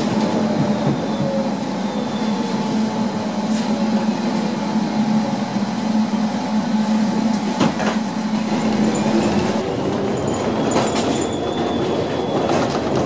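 Electric tram running, heard from inside the car: a steady motor hum with faint whines that slide down in pitch and later rise again. A few sharp clacks from the wheels on the track come in the second half.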